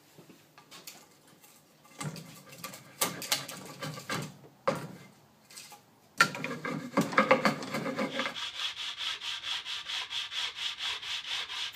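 Sanding block rubbed by hand along a bandsawn 2x board to smooth the rough saw marks. The strokes are irregular at first, then from about six seconds in they settle into a steady back-and-forth of about four strokes a second.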